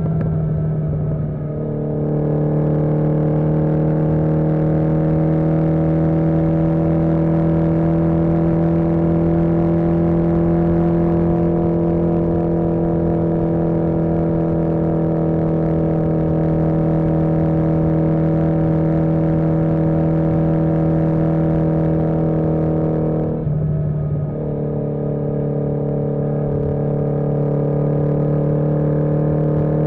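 1981 Yamaha XJ650 Maxim's air-cooled inline-four engine running steadily under way at road speed. The engine note dips briefly about a second in and again about three-quarters of the way through, settling slightly lower in pitch each time.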